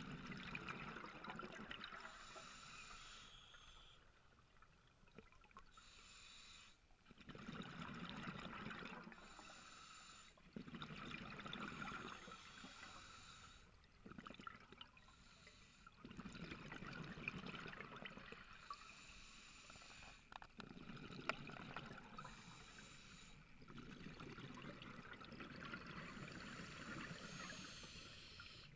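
Scuba diver breathing through a regulator underwater: a short hiss of inhalation alternates with a low bubbling rush of exhaled air, repeating about every four seconds.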